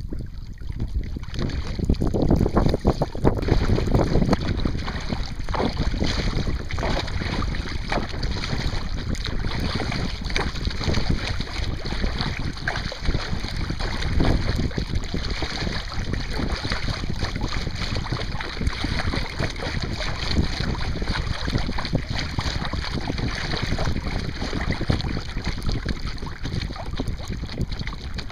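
Wind buffeting a deck-mounted microphone over choppy water, with water splashing against a kayak's hull and paddle as it is paddled, a little louder a few seconds in.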